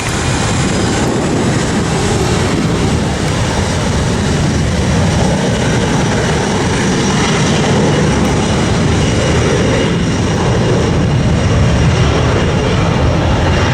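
Southwest Boeing 737 jet engines at takeoff power: a loud, steady rumble with a thin high whine on top, growing slightly louder toward the end.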